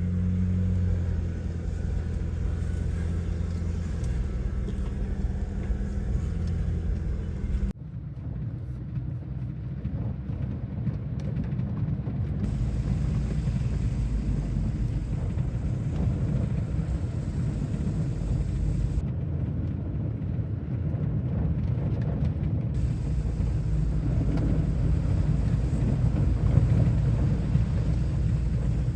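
Four-wheel-drive SUV, a GWM Tank 300, driving on a rough forest track: a steady low engine and tyre rumble, with an abrupt change in the sound about eight seconds in.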